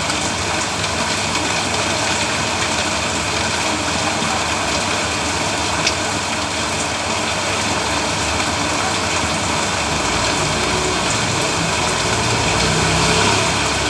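Heavy rain falling steadily, a dense even hiss of rain on the road surface. A low rumble swells in the last few seconds.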